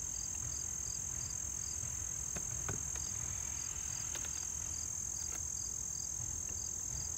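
Summer insects: a steady, high-pitched drone with a short chirp repeating about three times a second. A few faint knocks of wooden hive boxes being handled come through now and then.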